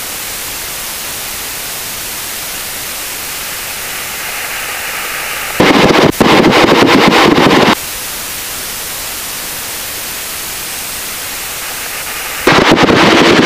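Steady electronic hiss of a cockpit headset intercom feed. About six seconds in, it is broken by a roughly two-second burst of louder rushing noise, and the loud noise returns near the end.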